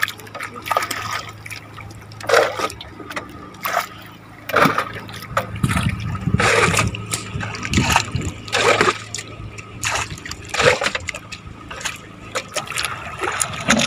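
Water splashing and trickling in irregular surges, roughly every one to two seconds, over a faint steady hum.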